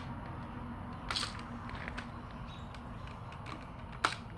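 Handling noises from a multi-pump BB air rifle: a soft rustle about a second in and a single sharp click near the end.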